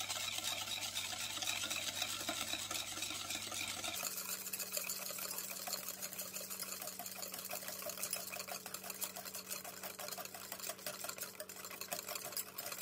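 Wire whisk beating eggs, sugar and softened butter into a thin batter in a glass bowl, its wires clicking rapidly and continuously against the glass.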